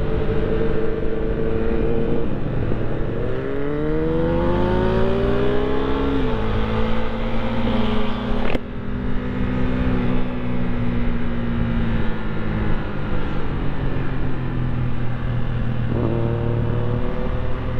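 Husqvarna Svartpilen 401's single-cylinder engine under way. It revs up through a gear, drops in pitch at a shift, then runs steadily and slowly eases off, with a sharp click about halfway and a sudden jump up in pitch near the end, as on a downshift.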